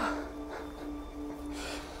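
Background music: a soft, steady held note, with a brief faint rush of noise about a second and a half in.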